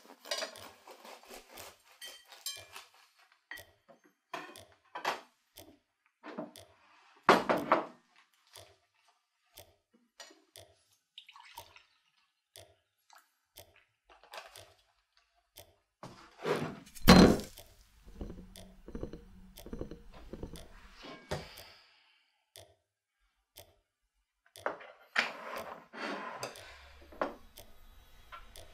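Breakfast-table sounds: scattered clinks and taps of cutlery on crockery, with two louder knocks about seven and seventeen seconds in, and milk poured from a carton near the middle.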